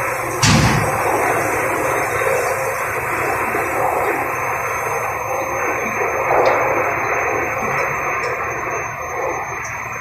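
Steady running noise of fertilizer production line machinery, with a brief thump about half a second in.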